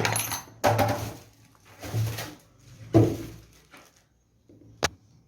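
Metal parts clattering and clinking as they are handled, four bouts in the first three seconds, then a single sharp click near the end.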